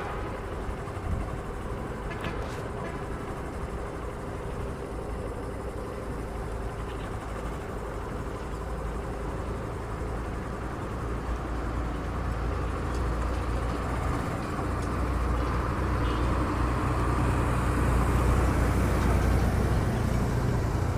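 Road traffic: steady engine and tyre noise from passing vehicles, growing louder over the last several seconds.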